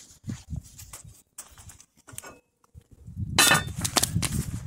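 Cast-iron Dutch oven and cookware handled on a steel fire pit: scattered light knocks and metal clinks, then a louder clatter with some ringing starting about three and a half seconds in.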